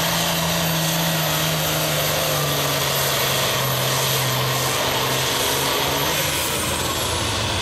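Turbocharged diesel engine of a Limited Pro Stock pulling tractor running loud and flat out under load as it drags the sled down the track. Its pitch sags slowly, the engine pulling down as the load builds.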